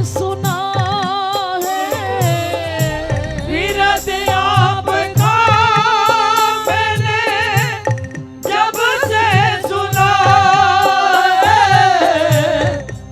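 Devotional bhajan singing: a woman's voice sings long, wavering held notes over a steady drone and regular percussion strokes.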